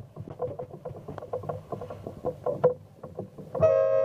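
Low steady rumble with scattered knocks and rustle, then about three and a half seconds in a loud, steady horn blast starts: a race committee's signal horn at a dinghy race start.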